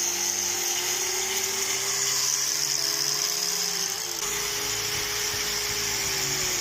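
Handheld electric grinder running steadily against a shoe sole, grinding the worn foam sole down to prepare it for gluing: a steady high whine with a hiss of abrasion, briefly easing off about four seconds in.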